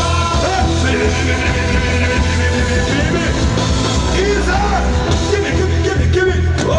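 Loud live band music over a PA, with heavy bass and a singing voice.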